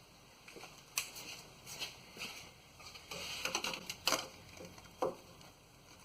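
Irregular light clicks and knocks of a wrench working a new oil filter tight on a Chevy 5.3 V8, a few at a time, with the loudest about four seconds in.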